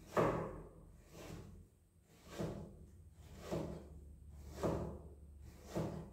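Knife chopping down onto a round cutting board, one firm chop about every second in a steady, even rhythm, over a low steady hum.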